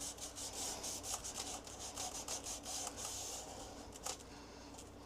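Scrubbing and scraping at stuck-on dried food residue inside a freeze dryer's chamber: a quick run of short, scratchy rubbing strokes that tails off a little over three seconds in, with one sharper click about four seconds in.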